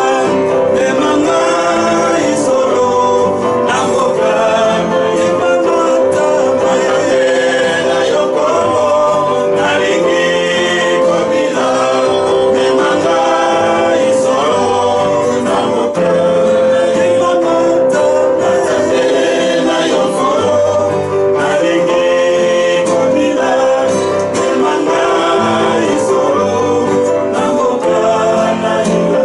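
A man singing a gospel song while strumming an acoustic guitar.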